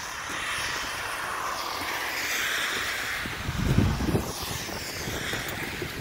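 A car passing on a slushy, wet street: a steady tyre swish that swells and fades over several seconds, with a few low wind buffets on the microphone a little past the middle.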